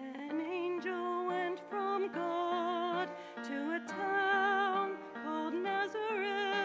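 A solo singer comes in and sings a slow, tender melody with vibrato over a soft instrumental accompaniment of held notes.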